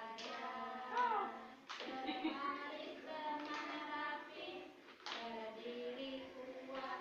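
Young children singing a song together in unison.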